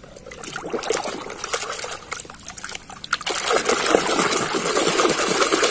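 Muddy water splashing and sloshing in a basin as a plastic toy truck is swished through it by hand to wash off the mud. The splashing grows louder about three seconds in.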